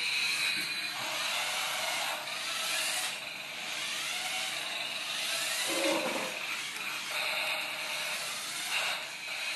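Small electric gear motors of a remote-control toy vehicle whirring with a high-pitched whine. They run in spurts of a second or two with short breaks as it is driven.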